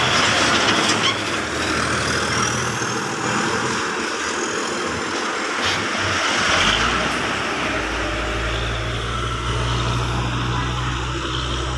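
A heavy tanker truck passing close by on the road. A deep engine rumble comes in about halfway through over a steady wash of tyre and road noise, and a faint rising whine is heard earlier on.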